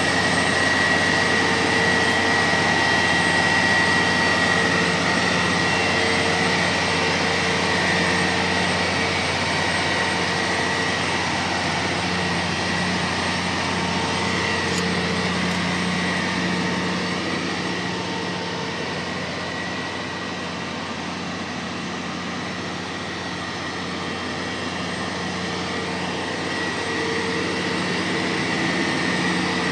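Heavy-lift crawler crane machinery running steadily under load during the lift: a continuous mechanical din with a steady high whine over a low hum, easing slightly about two-thirds of the way through.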